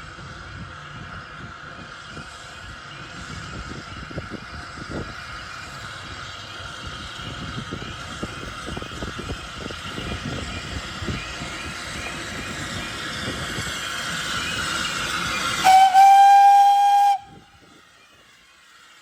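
Steam locomotive running with steam hiss and irregular clanking, growing steadily louder, then one loud whistle blast about a second and a half long that cuts off sharply near the end.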